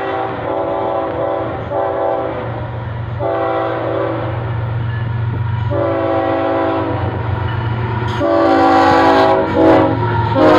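Florida East Coast Railway freight locomotives sounding a multi-note air horn in a series of long blasts with short breaks, over a steady low diesel rumble that grows louder as the train comes up and passes close by.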